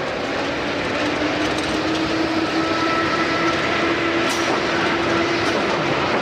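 Steady machinery or engine noise, loud and even throughout, with a faint humming tone that rises slightly in pitch and then holds.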